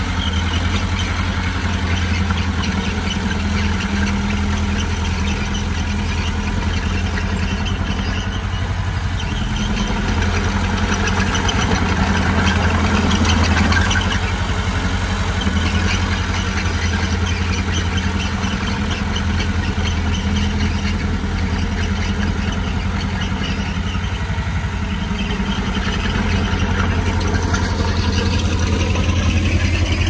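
Komatsu D20P bulldozer's diesel engine running at a steady pitch, swelling slightly in loudness now and then.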